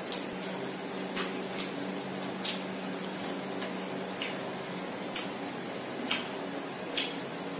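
Mouth chewing food with wet lip smacks: short, sharp clicks at irregular intervals, roughly one a second, over a steady low hum.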